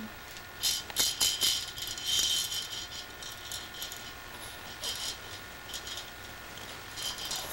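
Plastic baby rattle shaken in short bursts: a few quick rattling shakes about a second in, another burst around two seconds, and a brief shake near five seconds.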